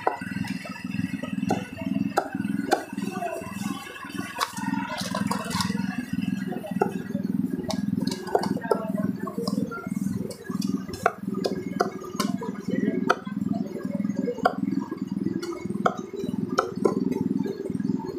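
Meat cleaver chopping a roast duck on a thick round wooden chopping block: sharp, irregular knocks, often several a second, over a steady low hum.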